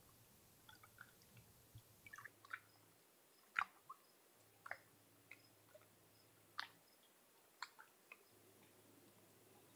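Small wavelets lapping against a rocky lake shore: faint, irregular plinks and plops of water among the rocks.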